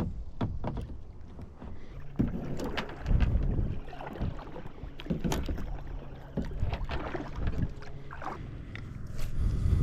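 A kayak on the water: irregular knocks and clicks against the hull and paddle, with water sounds and a few low thumps.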